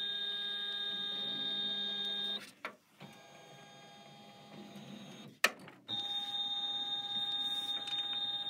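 Janome 500E embroidery unit's carriage motors running with a steady whine as they drive the hoop around the outline of the design during a trace. The whine drops away about two and a half seconds in, a sharp click comes a little past halfway, and the whine starts again soon after.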